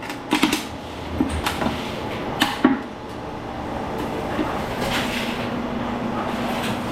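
Scrap metal clanking and cracking in the jaw of a hydraulic scrap shear as it bites through a piece, with several sharp knocks in the first three seconds, then a steady machine hum with a low held tone near the end.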